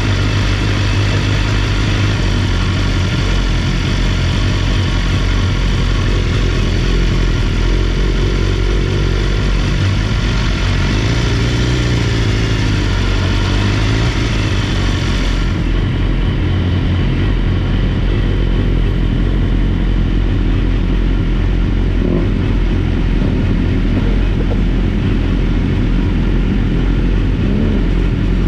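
BMW S1000RR inline-four engine running steadily at low revs up close, idling and rolling slowly with no big revs.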